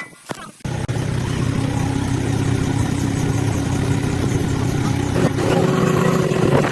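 An engine running steadily after a sudden start about half a second in, with a hissing crackle over it; its tone shifts about five seconds in.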